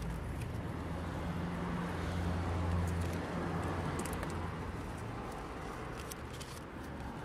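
A motor vehicle's engine hums steadily, growing louder for a couple of seconds and then easing off, with a few faint ticks of paper being handled.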